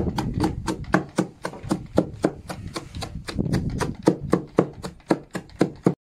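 A сечка, a steel crescent-bladed chopper on a long handle, chopping cabbage leaves and carrots in a wooden trough in quick regular strokes, about four to five a second, each stroke a short thud of blade through leaves into the wood. The chopping breaks off for a moment near the end.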